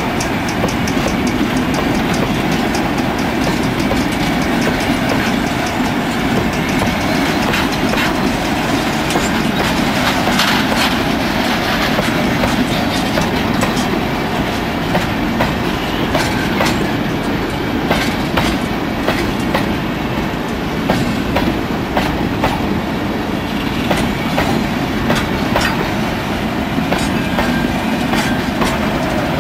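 Freight train of tank cars rolling past close by: a steady wheel-on-rail noise, with repeated clicking of wheels over the rail joints.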